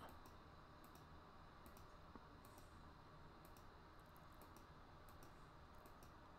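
Near silence: faint room hiss with small, irregular clicks, often in pairs, every second or so.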